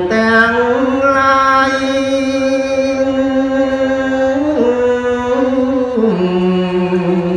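Khmer smot: a man's solo voice chanting Buddhist verse in long held notes, the pitch stepping down twice in the second half.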